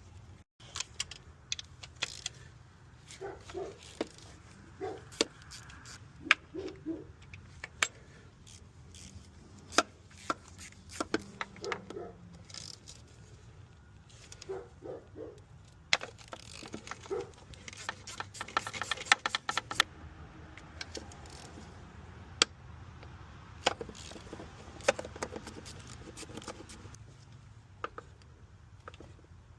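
Metal hand tools and parts clinking and knocking in irregular sharp strikes during work on a car's starter, with a rapid run of clicks a little past the middle.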